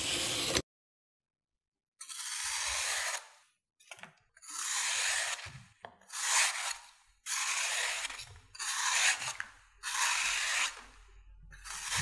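A knife blade slicing through a packed block of sand: a run of gritty, scraping hisses, about six separate cuts of roughly a second each. A brief scrape is heard at the very start.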